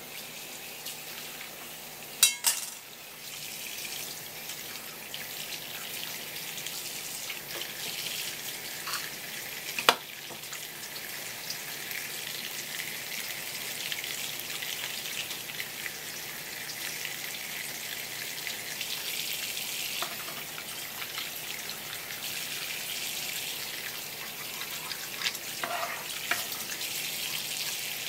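Tap water running steadily from a flexible metal faucet hose and splashing onto a whole fish and a wooden cutting board as the fish is rinsed. A few sharp knocks cut through it, the loudest about two seconds in and about ten seconds in.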